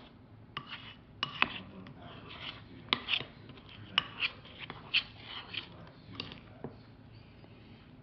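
Irregular scraping and light clicking of a baking-soda-and-shampoo slime mixture being stirred and worked in a bowl.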